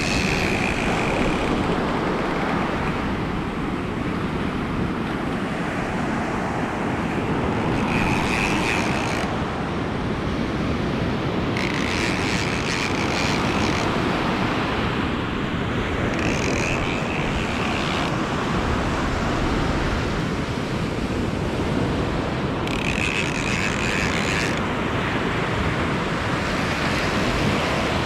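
Steady wind and surf noise, with a spinning reel whirring in four short bursts of a second or two each while a hooked shark is being fought.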